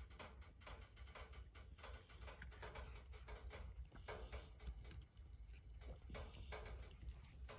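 A cat lapping water from a ceramic bowl: soft wet laps about twice a second, over a faint steady low hum.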